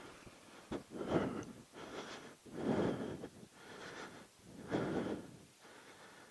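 A person breathing heavily, with several breaths in and out, the loudest about a second, three seconds and five seconds in.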